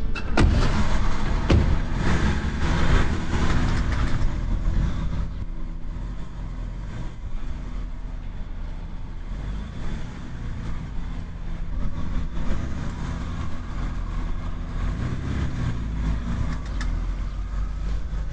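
Car engine running as an estate car pulls away, louder in the first few seconds and then a steady low rumble. A car door shuts with a sharp knock at the very start.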